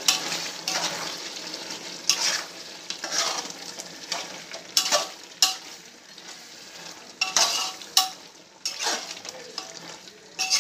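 Steel spoon stirring chicken and chopped tomatoes in an aluminium pot, with a steady sizzle of frying underneath and several sharp scrapes and knocks of the spoon against the pot, while the tomatoes cook down soft.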